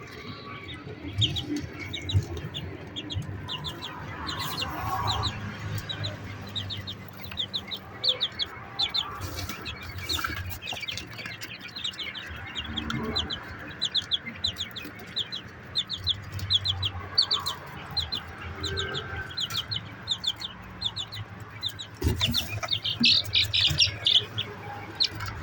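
A flock of 21-day-old quail chicks peeping: many short, high chirps, several a second, with a louder flurry near the end.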